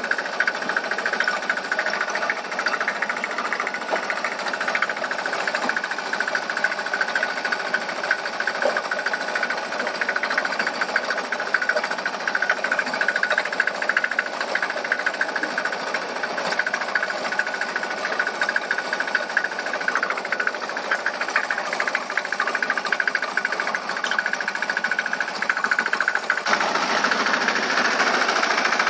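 A small engine running steadily with a fast, hammering mechanical rattle, as heard from a small vehicle being ridden. A couple of seconds before the end the sound gets fuller and deeper.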